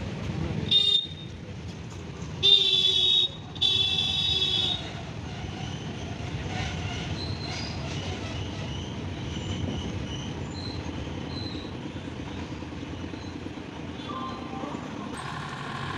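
Goods train rolling over a railway bridge with a steady rumble of wagons, while a locomotive horn sounds three times in the first five seconds: a short toot, then two longer blasts.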